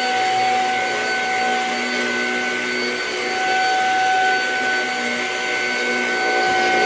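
Shark HV322 Rocket Pet Plus corded stick vacuum running steadily: a high motor whine over a continuous rush of air.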